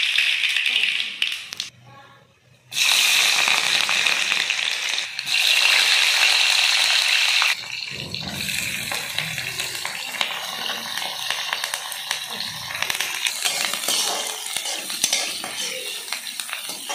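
Hot oil sizzling loudly in a kadhai as spices and chopped vegetables are tempered in it; the sizzle cuts out briefly about two seconds in and comes back. Past the middle it settles into softer frying, with the scrape and tap of a metal slotted spoon stirring the pan.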